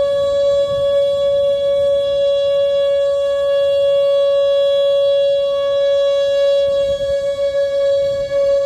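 Whelen WPS-2910 electronic outdoor warning siren sounding its steady Alert tone, the tornado warning signal: one loud, unbroken pitch whose level wavers slightly near the end.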